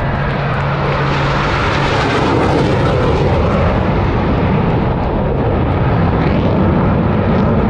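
Loud jet roar of a Blue Angels F/A-18 Super Hornet flying past. The high hiss builds in the first seconds and thins out toward the end as the jet moves away.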